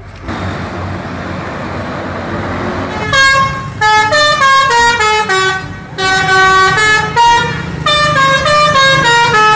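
Tour bus's multi-tone musical "telolet" horn playing a quick tune of stepped notes, starting about three seconds in and sounding in several short phrases with brief pauses, over the bus's engine and road noise.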